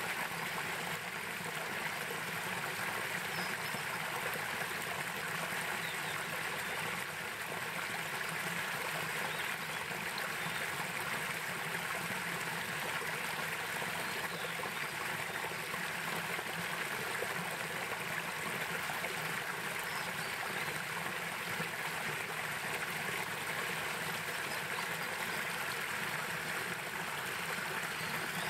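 Mountain headwater stream running over rocks: a steady rush of flowing water.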